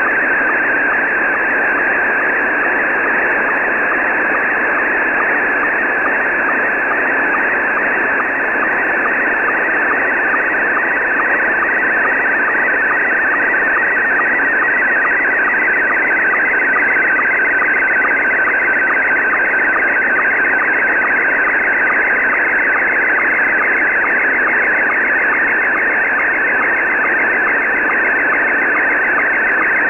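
Slow-scan television (SSTV) picture signal from a pirate shortwave station, received in lower sideband: a warbling high tone that carries a fast, even ticking rhythm from the scan lines. It comes through a steady hiss of static, because the signal is very weak and noisy.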